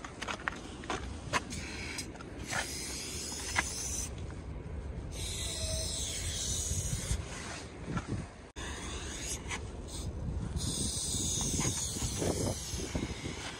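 Molotow aerosol spray paint can hissing in three long bursts as paint is sprayed onto a wall, with sharp clicks near the start and a low rumble underneath.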